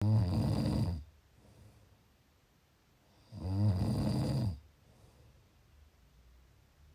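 A person snoring: two pitched snores about three seconds apart, each lasting roughly a second, with quiet breathing between them.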